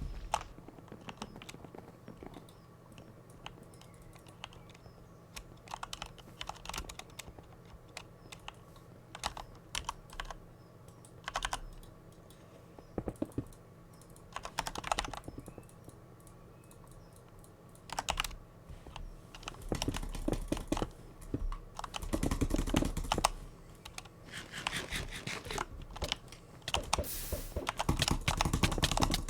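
A butterfly clicker being worked by hand, giving sharp clicks: scattered single clicks and short runs at first, then denser, louder runs of rapid clicking from about two-thirds of the way in.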